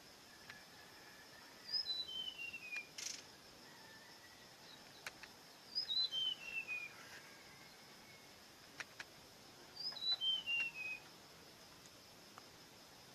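A songbird singing a falling run of clear whistled notes, stepping down in pitch over about a second, repeated three times about four seconds apart.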